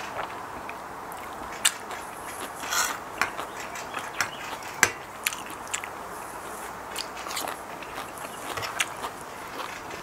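Close-up eating sounds: a person chewing a mouthful, with scattered sharp wet mouth clicks and smacks and a few crunchier bites.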